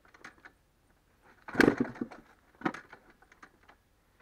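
Two hard strokes on a dirt bike's kickstarter, about a second apart, each a loud clunk; the engine does not fire.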